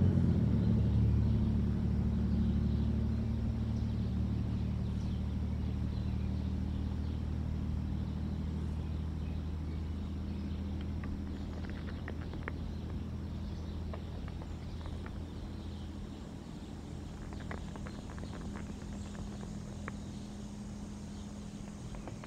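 Low, steady engine drone of a distant motor vehicle, slowly fading away, with a few faint ticks partway through.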